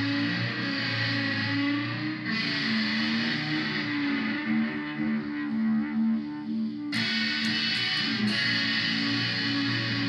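Electric guitar played through the Korg A5 multi-effects unit's chorus with the feedback turned all the way up. Sustained, shimmering chords are restruck about two seconds in and again about seven seconds in, the second time with a few sharp pick attacks.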